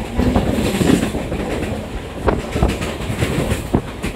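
Mumbai suburban local train (an electric multiple unit) running at speed, heard from on board. There is a steady rumble, and the wheels clatter over the track in irregular sharp knocks.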